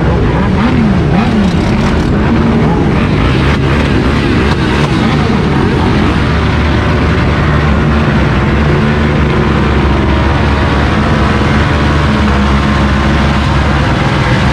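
Several motorcycle and quad engines running at once, revving up and down in the first few seconds, then settling into a steady loud drone.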